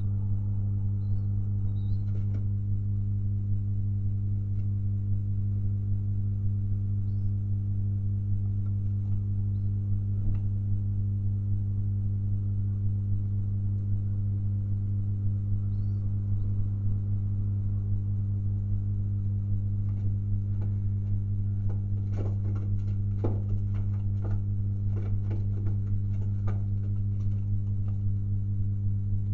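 Steady low electrical hum with a stack of overtones, unchanging throughout. Faint high chirps come a few times, and a patch of light clicks and scratches comes about twenty seconds in.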